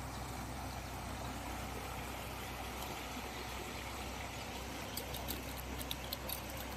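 Steady wind rumble on the microphone, with a few light, sharp clicks on gravelly ground near the end.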